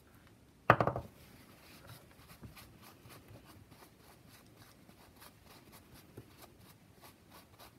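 Paper towel rubbing and dabbing over a paint-covered polymer clay bottle, faint soft rustling with small scattered ticks. A brief loud clatter comes about a second in.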